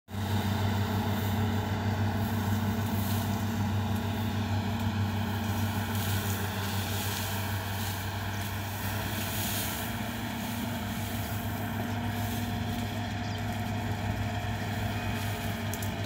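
New Holland TC5.30 combine harvester running steadily as it harvests wheat: a constant engine drone.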